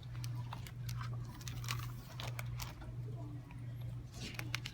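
Steady low hum with scattered light clicks and a short rustle near the end.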